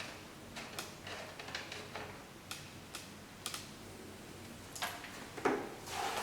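Light, irregular plastic clicks and taps as the screw caps on a beauty machine's water inlet and overflow are taken off, with a couple of louder knocks about five seconds in.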